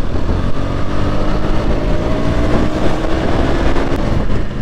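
KTM Duke motorcycle's single-cylinder engine pulling under way, its note rising slowly for about three seconds, with heavy wind rumble on the microphone.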